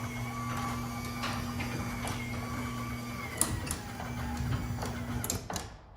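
Chamberlain garage door opener motor running with a steady hum while the door travels down, with scattered clicks and rattles from the door, as the close travel limit is being set. It stops about five and a half seconds in.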